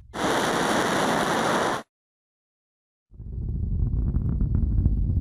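A loud steady hiss that cuts off abruptly just under two seconds in, a second of dead silence, then a deep rumbling roar that swells up: a capsule re-entry rumble effect.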